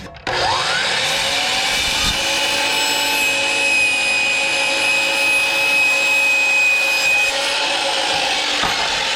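Miter saw motor starting with a rising whine, then running steadily as the blade cuts slowly through oak plywood, with the saw pulled toward the operator to keep the cut from splitting.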